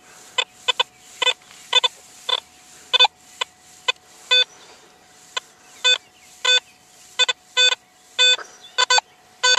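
Garrett AT Pro metal detector giving short, broken beeps at an uneven rate of about two a second as its coil sweeps over a buried nickel. The response is scratchy and unstable, the kind of iffy signal from a deeper coin that is easily written off as trash.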